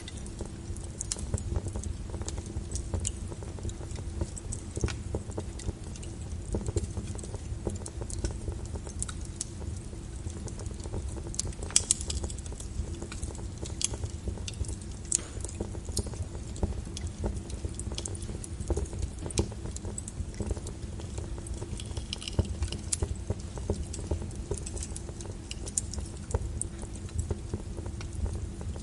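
Wood fire burning in a fireplace: a steady low rumble of flames with irregular sharp crackles and pops throughout, one louder pop about twelve seconds in.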